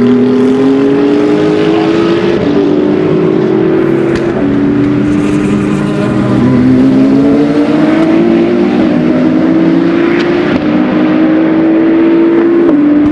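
Race car engines accelerating on track. More than one engine is heard at once, each climbing steadily in pitch and dropping sharply at each upshift, about every two seconds.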